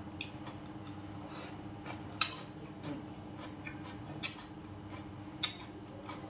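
Eating sounds: a spoon and chopsticks clicking sharply against the dishes three times, with fainter ticks and chewing, over a steady low hum.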